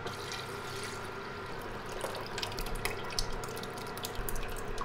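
Water sloshing and splashing in a bowl as haleem lentil mix is stirred into it, with irregular little splashes and clicks that grow busier after about two seconds.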